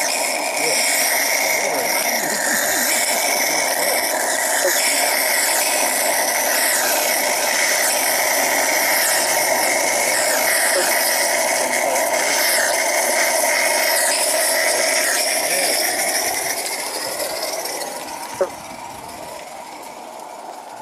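Small live-steam garden-scale tank locomotive passing close by, giving off a loud, steady hiss of steam that fades away over the last few seconds. A single sharp click sounds about two seconds before the end.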